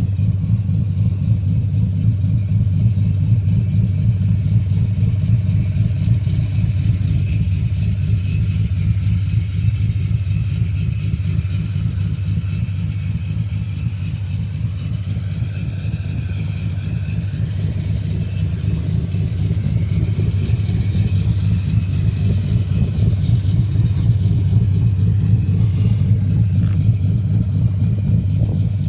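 Motor vehicle running with a steady low rumble, easing slightly about halfway through and building again toward the end.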